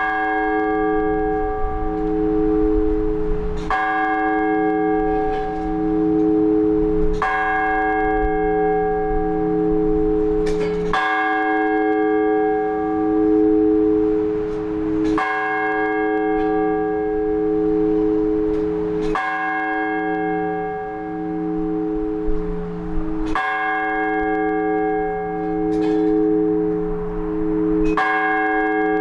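A single large Orthodox church bell tolled in the slow, measured strokes of the blagovest, calling the faithful to the all-night vigil. There are eight strokes about four seconds apart, and each rings on with a pulsing hum into the next.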